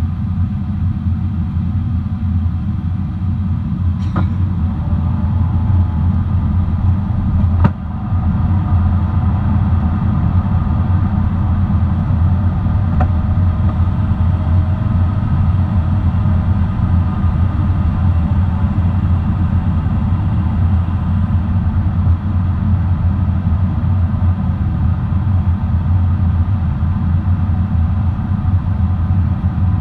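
Steady low rumble inside a Boeing 777-300's passenger cabin in flight, engine and airflow noise, with two brief clicks about four and eight seconds in.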